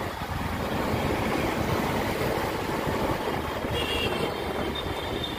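Riding noise from a motorbike in city traffic: a steady rumble of wind on the microphone mixed with engine and road noise. A faint steady high tone joins about two-thirds of the way in.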